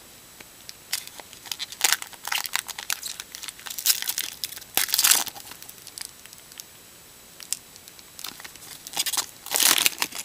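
Foil wrapper of a Topps baseball card pack crinkling and tearing as it is ripped open by hand. It comes in crackly bursts: a long stretch in the first half, a pause, then another loud burst near the end as the cards are pulled from the torn foil.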